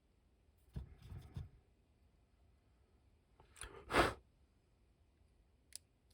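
Quiet handling sounds of a small plastic action figure being worked on at a table: a few light clicks and rustles about a second in, a short breath-like puff a few seconds in, which is the loudest sound, and a single sharp click near the end.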